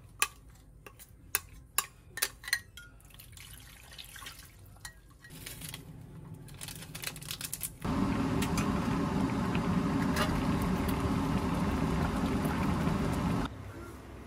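A few sharp clicks of a metal spoon on a glass bowl as chili sauce is scraped into a cast-iron braiser. Then, about eight seconds in, loud steady bubbling of the red tofu braise boiling in the pot, cut off suddenly near the end.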